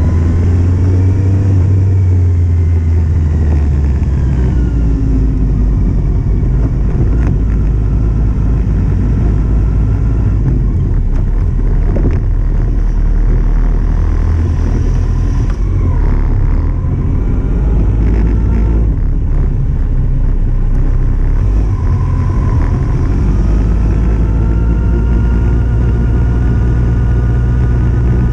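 2008 Kawasaki Z750's inline-four engine heard from an onboard camera while riding. Its pitch climbs under acceleration near the start and again near the end, over a heavy low rumble.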